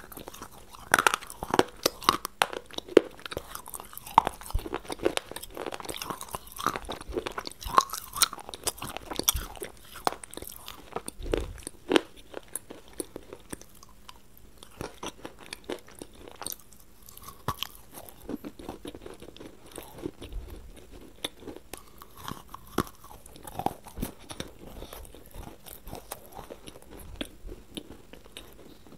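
A person chewing a mouthful with crisp crunches, close to the microphone. The crunching is busiest in the first half, thins out around the middle, then picks up again.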